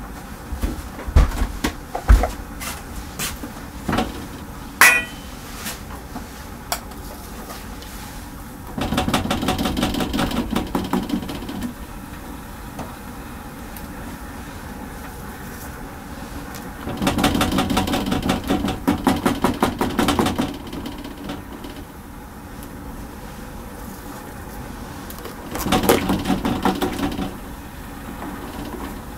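Kitchen work at a gas stove: scattered knocks and clinks of pots, pans and lids, with one short metallic ring about five seconds in. Later come three spells, each a few seconds long, of rapid, even rattling.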